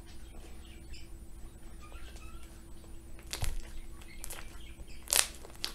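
Green fluffy slime, softened with lotion and shaving cream, squished and stretched by hand, giving faint squeaks and a few sharp crackling pops about three and a half, four and five seconds in, the last the loudest. The lotion is what makes the slime crunchy.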